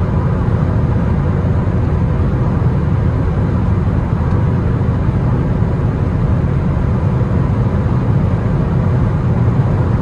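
Steady low road and engine noise inside a car's cabin while driving at speed on a highway.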